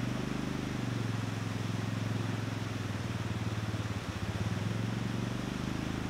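ATV engine idling steadily close by, an even low putter that wavers briefly about four seconds in.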